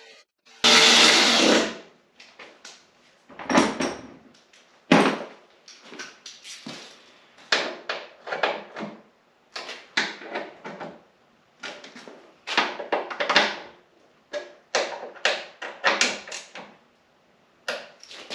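Parts and hand tools being handled during snowmobile reassembly: irregular clatters, clicks and rustles, beginning with one loud noise that lasts about a second.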